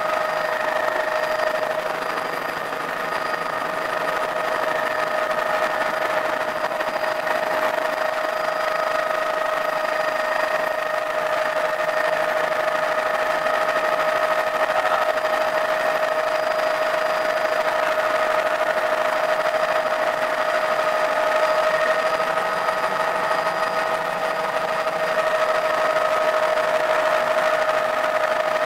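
Small helicopter's engine and rotors heard from inside the cabin through take-off and low flight: a steady whine over a constant mechanical drone.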